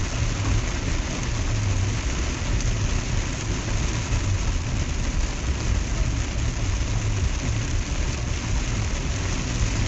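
Heavy rain drumming on a truck as it drives, over the steady low rumble of the truck's engine and tyres.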